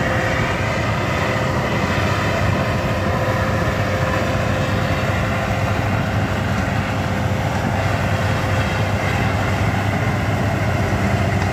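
Tracked rice combine harvester running steadily as it works through the crop: a constant machine drone with a steady whine over it.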